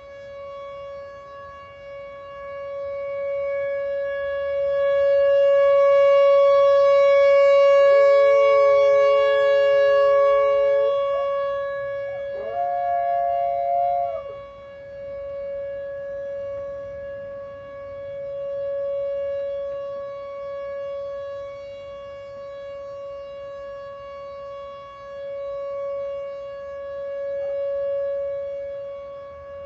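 Tornado warning siren sounding one steady tone that rises and falls in loudness. A dog howls along with it twice, a long howl about eight seconds in and a higher one about twelve seconds in.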